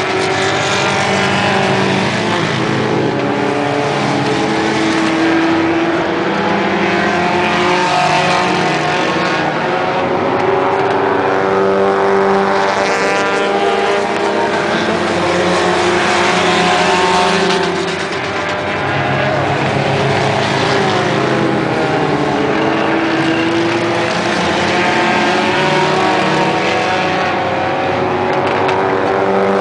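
Enduro race cars' engines at full throttle on an oval track, several running at once, their pitch rising and falling as cars pass and lap.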